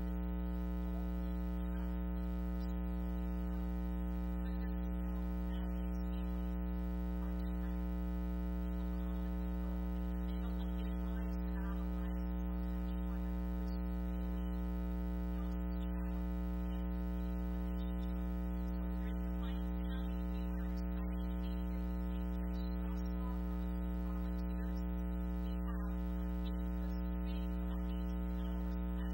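Steady electrical mains hum: a low buzz with many overtones, loud enough to bury the voice at the microphone.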